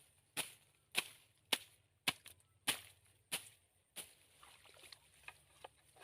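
A regular run of sharp clicks or taps, about one every two-thirds of a second, loud for the first few seconds and then weaker and more scattered.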